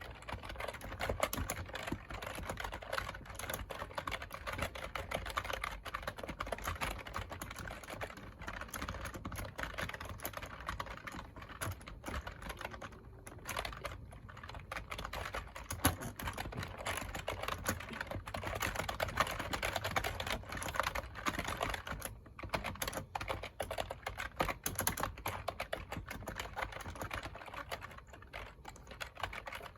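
Typing on a computer keyboard: a fast, continuous run of key clicks with a couple of brief pauses.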